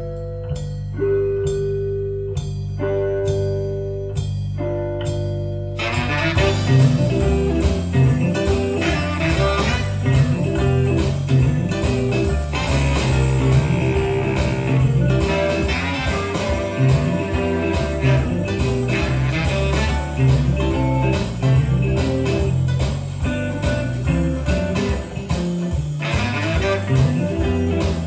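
Blues music playing back from cassette on a Sony TC-K555ESA tape deck. It opens with a few held notes over a steady bass, and a full band with guitar and drums comes in about six seconds in.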